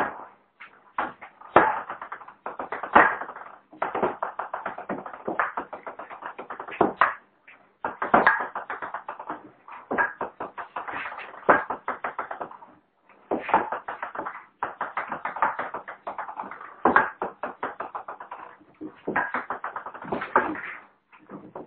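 Ping-pong ball bouncing in quick runs of light clicks. Each run fades away as the ball settles, then starts again with a fresh hit.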